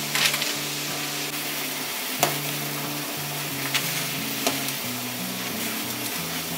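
Ramen broth boiling hard in a pot around instant noodles, a steady bubbling hiss. A few sharp clicks come from chopsticks striking the pot as the noodles are loosened.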